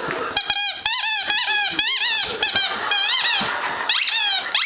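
Squeaker inside a plush platypus dog toy squeaking over and over as a Pembroke Welsh Corgi puppy chews it: a quick run of short squeaks, about four or five a second, each rising then falling in pitch, with a brief pause near the end.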